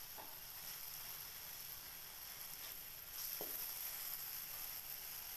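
Sambal paste sizzling in hot oil in an aluminium wok as it is stirred, a steady high hiss that grows a little louder about three seconds in. A metal spatula scrapes the wok briefly twice.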